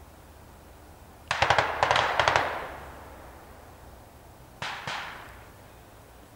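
Gunfire with echo: a rapid burst of about a dozen shots just over a second in, then two more shots about a second and a half later.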